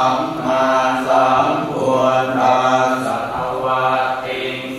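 Thai Buddhist chanting (suat mon) from a temple's chanting service: voices reciting on a nearly level pitch in phrases about a second long.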